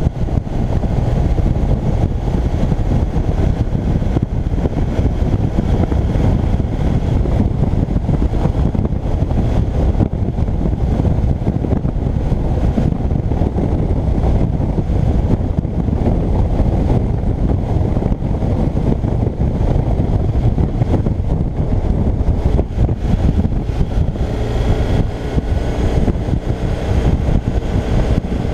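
Motorcycle riding at road speed: wind rushing over the microphone with the engine running underneath. Near the end the engine's note stands out more clearly.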